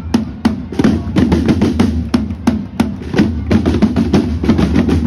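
A corps of rope-tensioned parade drums played with sticks, beating a loud, fast marching rhythm.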